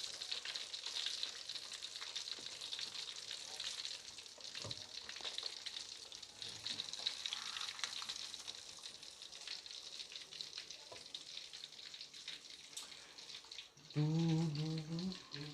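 Carp frying in hot oil: a steady crackling sizzle with scattered small pops. The fish is not yet cooked through and still frying.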